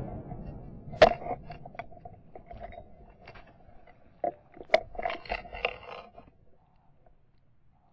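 A shotgun blast fading away at the start, then metallic clicks, scrapes and rattles from the shotgun being handled between shots: a sharp click about a second in and a burst of clicks around four to six seconds in.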